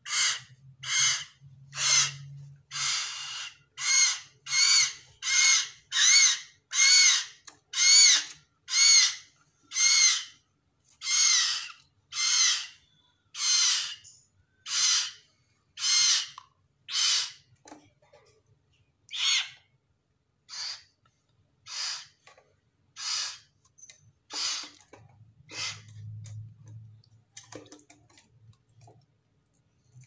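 Three-week-old hill myna chick giving repeated harsh begging calls with its beak gaping, about one and a half a second. After about 17 seconds the calls come further apart and quieter.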